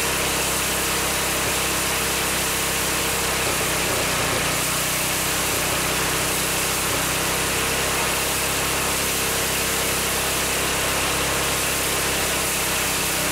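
Small petrol engine running steadily at a constant speed, driving a homemade rice threshing machine, with a constant hiss over the engine note.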